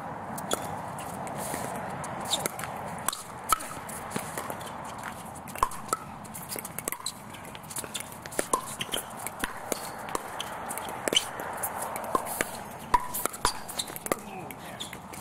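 Pickleball rally: paddles striking the hard plastic ball in a quick, irregular series of sharp pocks, over steady background noise.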